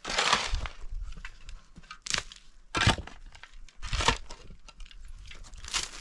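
Stones knocking and scraping against rock as they are handled and set down, with crunching of loose rubble; a short noisy burst at the start, then separate sharp knocks about two, three, four and six seconds in.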